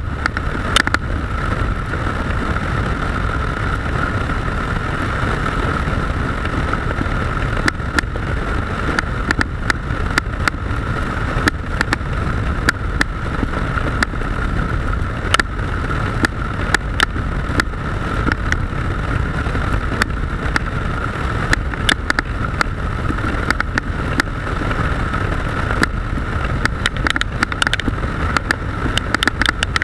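Motorcycle riding along: steady engine and rushing noise, with many short sharp crackles that come more thickly near the end.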